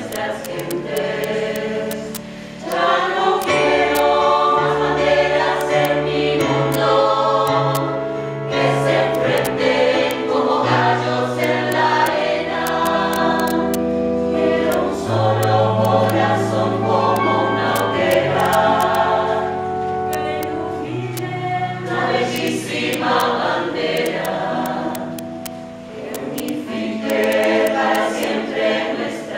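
Mixed choir of men and women singing in several parts, holding notes that shift every second or two, with a low line under the upper voices. The singing dips briefly twice, between phrases.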